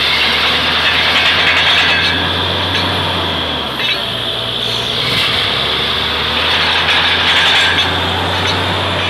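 Truck-mounted borewell drilling rig running under load while boring: a steady low engine drone under a harsh rattling hiss. The drone shifts in pitch for a moment about four seconds in.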